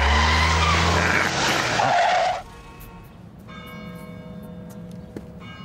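Car engine revving hard as a car pulls away, with a brief tyre squeal about two seconds in. It cuts off suddenly, and soft chiming, bell-like music follows.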